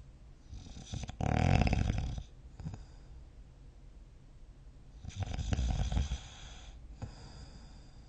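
A person snoring: two long snores about four seconds apart, the first the louder, each with a rough, fluttering rattle.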